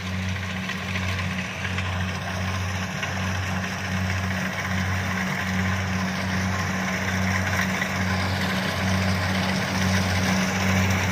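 Kubota DC-70 combine harvester running under load, a steady dense machine noise of engine and threshing, with a low regular throb pulsing a little faster than once a second.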